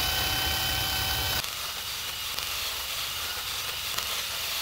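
DeWalt cordless drill with a half-inch bit drilling out a broken bolt in a cast-iron engine block's mounting ear. It runs steadily with a whine for about the first second and a half, then goes on slightly quieter and rougher as the bit cuts into the metal.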